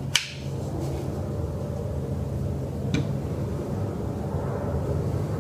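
Aluminium rail channels fitted with teak strips being handled: one sharp metallic clink just after the start and a lighter knock about three seconds in, over a steady low hum.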